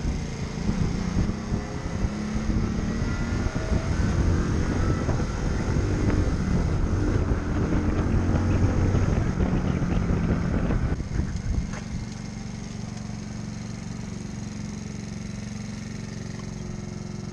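Small 50cc Champ motorcycle engine being ridden, its pitch rising and falling with the throttle. About eleven seconds in it drops to a steady idle as the bike stops.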